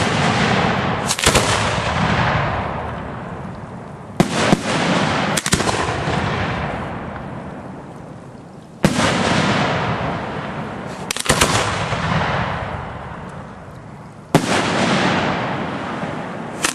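Aerial firework shells going off close by. There is a sharp bang about every three seconds, some of them doubled, and each one fades away over a few seconds into a long echoing tail.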